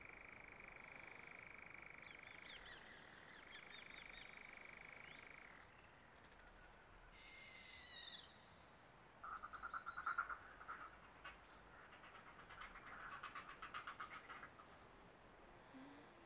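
Faint night-time woodland ambience of wild animal calls: a steady high trill in two long stretches over the first six seconds, a brief chirping call about eight seconds in, then bursts of a rapid stuttering call between about nine and fifteen seconds.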